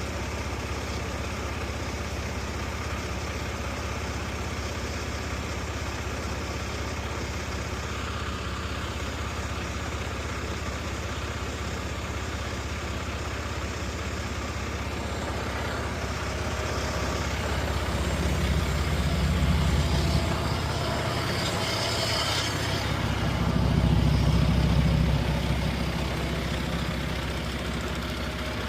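Concrete mixer truck's diesel engine idling steadily, then revving up twice in the second half, with a brief hiss between the two revs.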